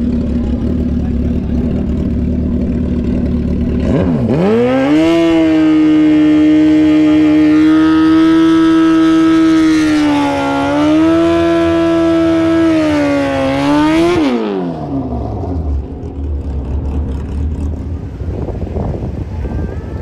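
Drag-racing sport bike's engine idling, then revved sharply about four seconds in and held high for about ten seconds while it does a burnout, the rear tyre spinning, with a brief dip in revs midway. Near the end the revs drop quickly back to a rough, lumpy idle.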